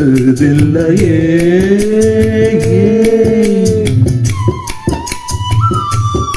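A Tamil film song played through an 8-inch two-way speaker box. A singer holds a long note until about four seconds in, then a high held instrumental line takes over, stepping up once near the end, over regular percussion beats.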